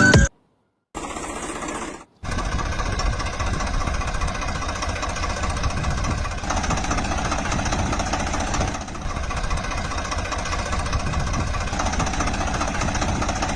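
A small machine, likely a power tool used on the miniature woodwork, running with a rapid steady rattle. It starts briefly about a second in, cuts out, then runs on without a break from about two seconds in.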